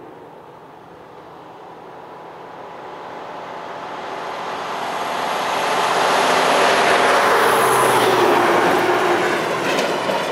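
Road traffic noise growing steadily louder over several seconds as a heavy truck approaches along the road, tyre and engine noise peaking in the second half and easing slightly at the end.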